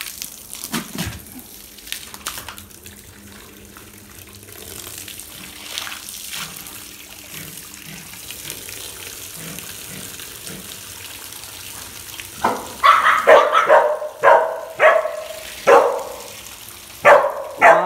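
A stream of water pouring and splashing over a metal cone pig feeder set in a tyre, as it is washed. From about twelve seconds in, a dog barks repeatedly, a run of about eight sharp barks, louder than the water.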